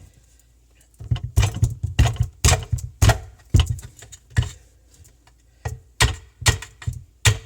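About a dozen sharp, irregular knocks as a screwdriver is driven against the dishwasher-inlet knockout plug of a new Waste King garbage disposal to punch it out.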